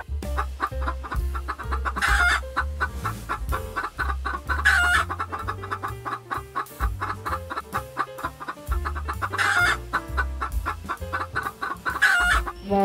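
Chickens clucking, with four short, louder calls spread through, over background music with a steady beat and a moving bass line.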